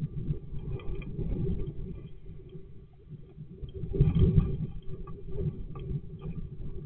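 Great tit shuffling and turning round on the wooden floor of a nest box, its feet scratching and its body brushing the walls in a run of small scrapes and bumps. The movement is loudest about four seconds in, over a faint steady hum.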